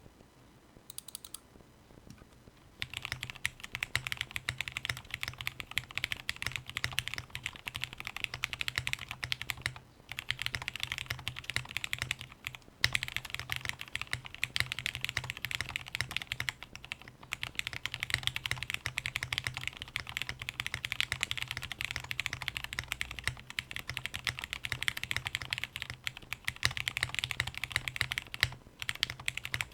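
Steady fast typing on a mechanical keyboard: an Akko Top 75 aluminium board with lubed and filmed Cherry MX Black clear-top linear switches on an FR4 plate, under Cherry-profile keycaps. A few light taps come first, then continuous typing starts about three seconds in, with brief pauses.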